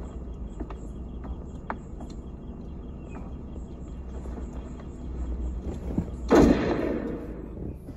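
A single loud gunshot-like blast from the music video's soundtrack, about six seconds in, that dies away over a second, over a low steady rumble with a few faint scattered clicks.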